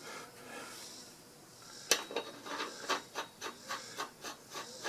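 Metal parts being fitted onto a riding mower deck spindle: a faint rubbing at first, then a sharp clack about two seconds in and a steady run of light clicks, about four a second.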